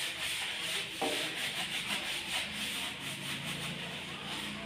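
A rag scrubbing a motorcycle's front wheel hub by hand, with quick back-and-forth rubbing strokes that go on steadily.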